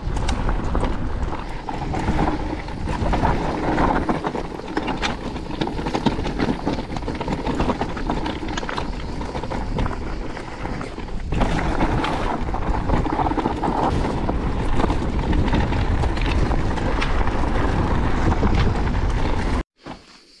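An electric enduro mountain bike riding fast down a dirt and gravel trail: wind noise on the microphone, tyres on loose ground, and the bike rattling, with many sharp clicks and knocks. The noise stops abruptly shortly before the end and drops to a much quieter background.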